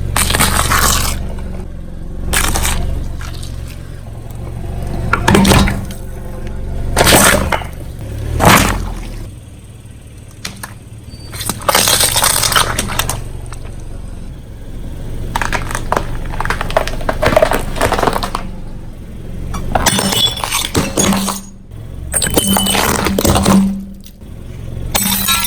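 A car tyre rolling over and crushing brittle objects: repeated loud crunching and breaking, some short cracks and some longer grinding crunches. A low engine rumble sits under the first part and returns later.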